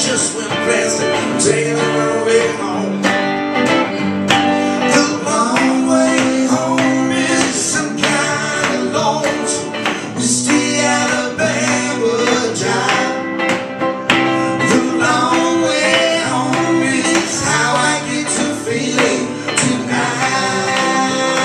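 A live blues band playing a song, with a man singing lead over two guitars.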